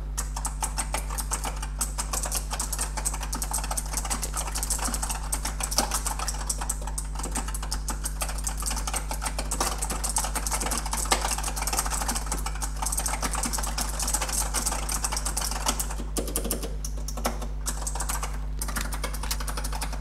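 Continuous fast typing on a Razer Huntsman Elite with purple Razer opto-mechanical switches, giving a dense run of light, clicky keystrokes. There are a couple of short pauses near the end, all over a low steady hum.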